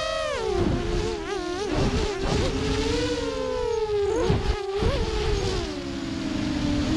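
Buzzing whine of an FPV aircraft's electric motor and propeller, heard through its onboard camera with wind rumbling on the microphone. The pitch drops sharply at the start, wavers up and down through the middle, and settles lower near the end.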